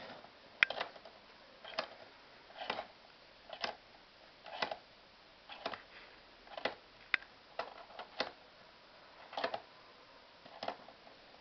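A hand-cranked scissor jack clicking about once a second as it is turned slowly, pressing a wooden piston down onto soaked newspaper in a briquette press.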